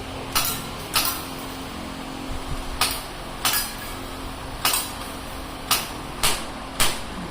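A string of about eight sharp knocks and clanks, irregularly spaced, each with a short ring.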